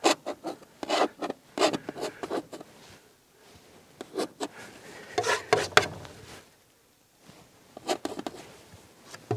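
Palette knife scraping and dabbing oil paint onto a canvas, in quick irregular strokes and light ticks with two short pauses.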